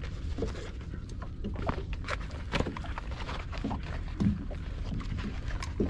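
Water lapping and slapping against the hull of a small boat drifting on the bay, with a steady low wind rumble on the microphone and scattered small knocks and clicks of movement in the boat.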